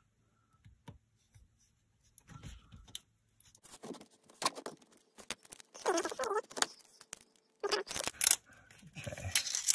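Utility knife blade cutting and scraping at the plastic seal label on a plastic cannabis jar: irregular clicks, scrapes and tearing rasps after a quiet first two seconds, with a longer scraping rasp about six seconds in.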